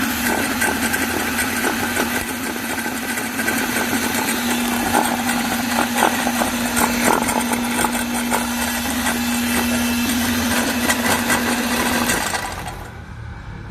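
Small engine-driven construction machine running steadily with a constant hum, cutting off about twelve seconds in.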